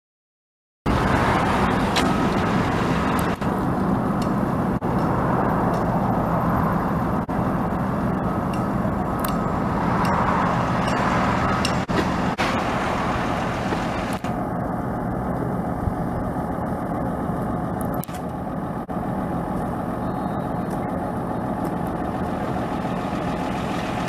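Steady vehicle engine and road traffic noise, starting abruptly about a second in.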